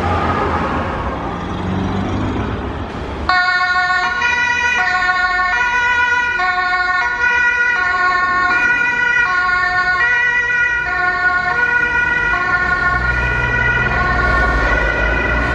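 Low rumble of fire brigade vehicles pulling away, then about three seconds in a German two-tone emergency horn (Martinhorn) starts abruptly and keeps alternating between two pitches.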